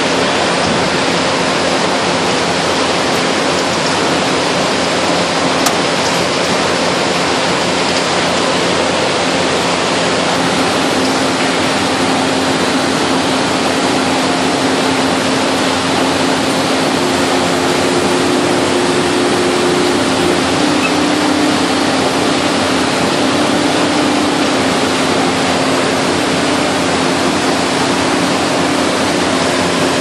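International Baler TR12-T100 two-ram baler running while baling corrugated cardboard: a loud, steady mechanical noise with a low hum underneath, a higher hum tone joining for several seconds midway.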